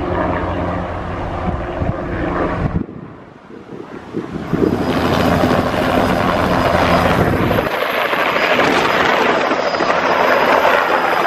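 A vehicle engine hums steadily for the first few seconds. After a short lull, a light helicopter lifting off from its pad sets up a loud, even rushing of rotor and engine noise that goes on from then, with wind buffeting the microphone.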